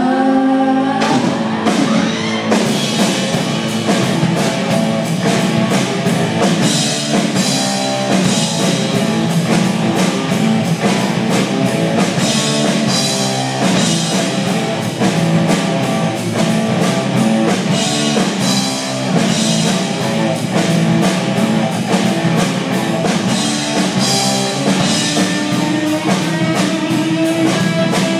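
Live rock band playing: electric guitar over a drum kit with cymbals. Held notes give way to the full band coming in together about a second in.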